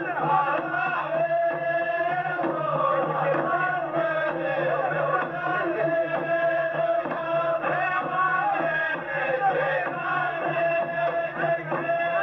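A chorus of men chanting the verses of an ardah, the Saudi sword dance, in unison. The lines are long and drawn out, several voices holding the same wavering notes together.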